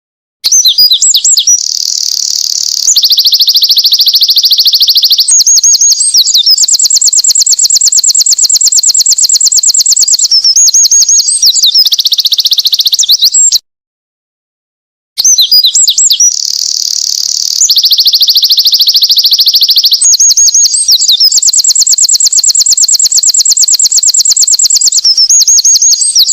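Winter wren singing its long, loud song of rapid trills and fast high runs. The same song is heard twice, each time lasting about thirteen seconds, with a short silence between.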